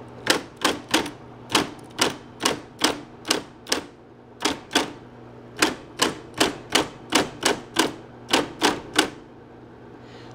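Smith-Corona Coronet Super 12 electric typewriter typing key after key, about two sharp strikes a second with a short pause about four seconds in, over the steady hum of its motor. The strikes stop about a second before the end.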